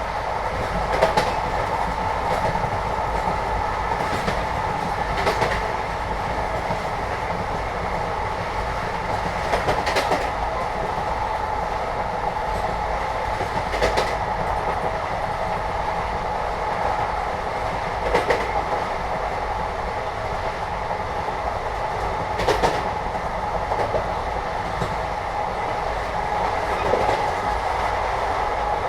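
Indian passenger train heard from inside a carriage: a steady rumble of the running train, with sharp wheel clacks every few seconds.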